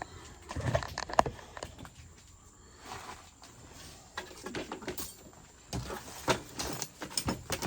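Irregular knocks, clunks and rustles of items being handled and moved around while rummaging through a box, heaviest about a second in and again near the end.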